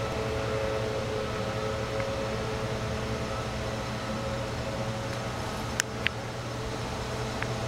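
A steady mechanical hum, with three short sharp clicks late on.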